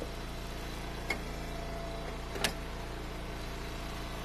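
Eastonmade hydraulic log splitter's small gas engine running steadily, with two sharp cracks, about a second in and then louder midway, as hickory is split on the beam.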